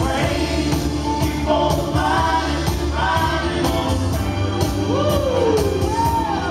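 Music played by a DJ: a singing voice with sliding, held notes over organ and a steady beat of about two strokes a second.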